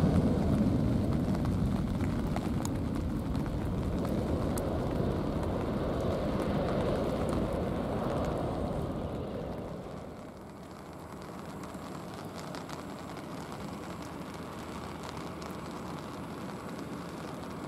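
Jet engines of a Boeing 737-800 (CFM56-7B turbofans) at takeoff thrust, a deep rush fading steadily as the plane climbs away. About ten seconds in the sound drops to a quieter, steady rushing hiss, with rain.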